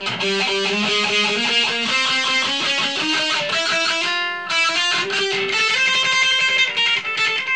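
Ibanez S470 electric guitar with DiMarzio Gravity Storm pickups, played as a run of changing notes with a few held notes, and a short break about four seconds in.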